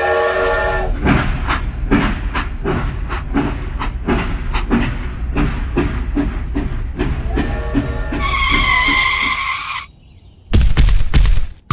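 Toy steam train sound effects: a chord whistle, then a steady chuffing rhythm of about three beats a second, then a second, higher whistle with a hiss. After a brief pause, a short loud burst of noise comes near the end.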